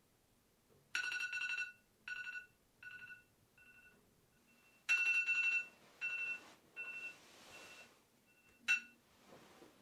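Smartphone alarm sounding: a bright two-pitch electronic tone comes in loud about a second in and repeats more and more faintly, then comes back loud and fades again. A single sharp knock sounds near the end.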